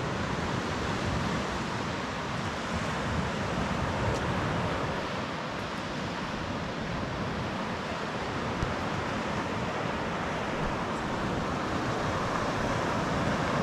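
Waves washing onto a sandy beach, with wind buffeting the microphone: a steady noise without any tone or rhythm.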